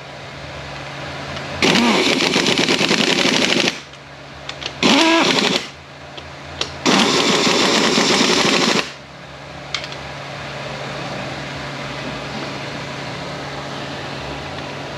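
Handheld power tool, such as an impact or ratchet, run in three bursts: about two seconds, then under a second, then about two seconds again. A low steady hum runs between the bursts.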